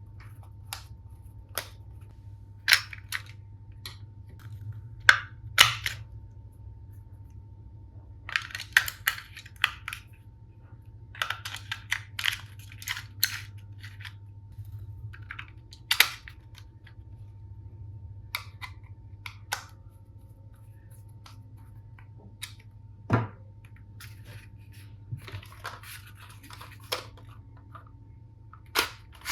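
Plastic toy tools and their packaging being handled: scattered sharp clicks and snaps, with a few short spells of crinkly rustling.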